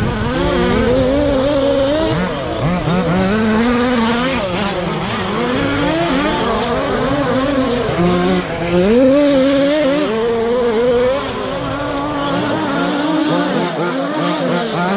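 Several radio-controlled short course race trucks running on the track, their motors revving up and down as they accelerate and brake through the corners.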